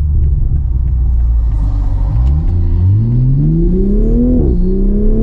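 Toyota GR Supra's B58 turbocharged straight-six through a single-exit titanium exhaust in sport mode, with a deep tone. It drones steadily, then accelerates from about two seconds in with the engine pitch rising. The pitch drops suddenly as it shifts up, then climbs again.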